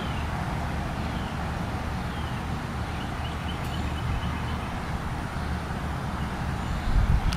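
Wind rumbling on the microphone outdoors, a steady, gusty low noise that grows a little louder near the end, with a few faint high chirps in the middle.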